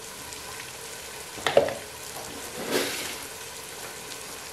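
Onion and tomato masala frying in oil in a non-stick pot on a low flame: a steady soft sizzle, with a brief sharp knock about one and a half seconds in and a short swell of sizzle about a second later.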